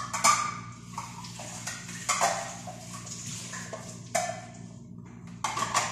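Kitchen items being handled at the counter: a few sharp knocks and clinks of dishes and utensils, with a quick run of them near the end, over a steady low hum.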